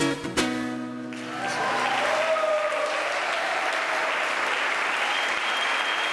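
A nylon-string classical guitar ends the cueca on two final strummed chords that ring out for about a second, then the audience breaks into steady applause.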